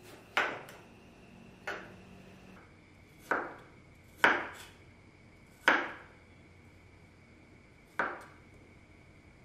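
Chef's knife chopping through watermelon flesh onto a wooden cutting board: about six sharp knocks at uneven intervals, the loudest near the middle.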